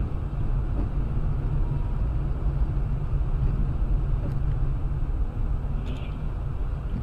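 Steady low rumble of a car driving, heard inside the cabin, with two faint ticks about four and six seconds in.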